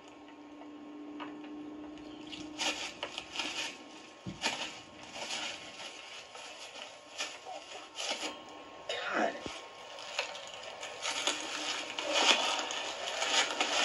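Footsteps rustling and crackling through dry leaf litter and twigs on a forest floor, in irregular clusters that grow denser near the end.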